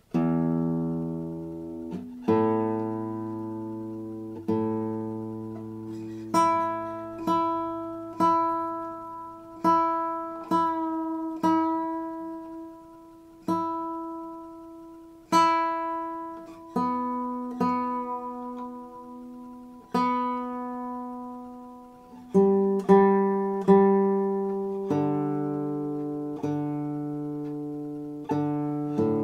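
Classical guitar played fingerstyle: a slow piece of single plucked notes and chords, each left to ring and fade before the next.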